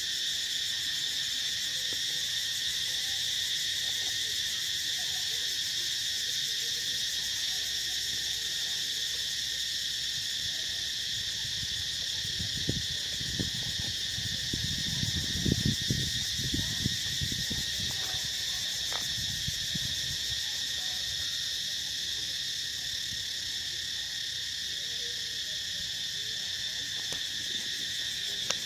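Steady, high-pitched chorus of insects droning in several stacked bands. About halfway through comes a cluster of soft, low knocks and rustles.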